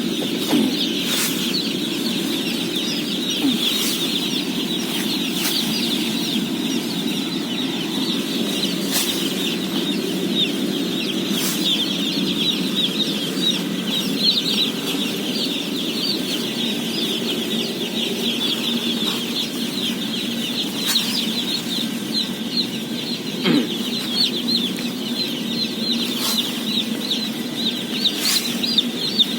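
Thousands of day-old chicks peeping all at once: a dense, unbroken chorus of high chirps, with a steady low hum underneath and a few sharp clicks here and there.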